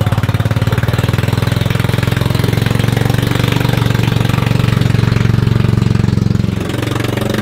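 Small scooter engine of a jet ski converted to ride on wheels, running at steady throttle with a fast, even pulse. Near the end it eases off and drops in pitch.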